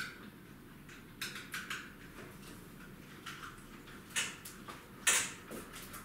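Scattered light clinks, taps and knocks of items being handled at a kitchen counter and sink, with a louder, brief rattle about five seconds in.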